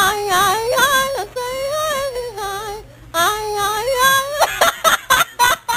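A high-pitched voice singing or wailing long, wavering notes in three drawn-out phrases. Near the end come a quick run of short, sharp sounds.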